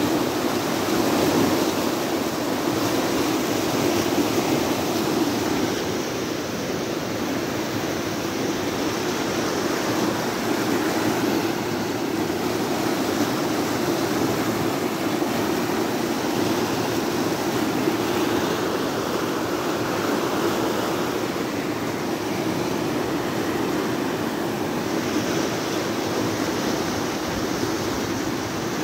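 Muddy floodwater torrent rushing down a rocky channel: a steady, unbroken rush of water noise.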